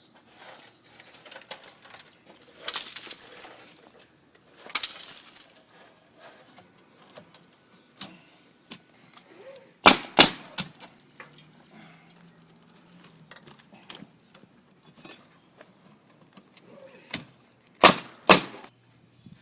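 Roofing work: scraping and rustling of roofing material, with two pairs of sharp, loud knocks, one pair about halfway through and another near the end.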